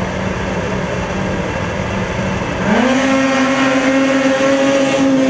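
A line of snocross racing snowmobiles held at steady revs on the start line. About two and a half seconds in, the engines rise sharply in pitch and stay high and louder as the pack launches off the line.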